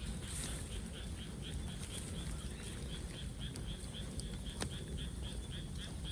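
Bamboo bonfire burning with a low rumble and a few sharp crackles, the clearest about two-thirds through. Over it runs a high chirp repeated about five times a second.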